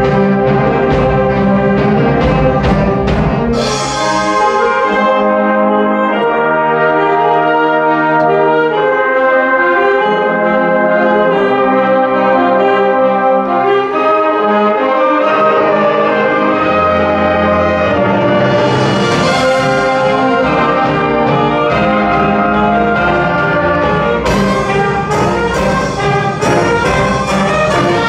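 A large wind band of trumpets, trombones, horns, tuba, saxophones and flutes playing live, in held brass chords. Sharp percussion strikes punctuate the music in the first few seconds and again near the end.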